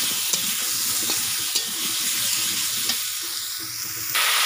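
Potato pieces sizzling as they fry in hot mustard oil in a metal kadai, with a metal spatula scraping and clicking against the pan now and then. Just before the end the sound cuts abruptly to a louder, steady hiss as water goes into the hot pan.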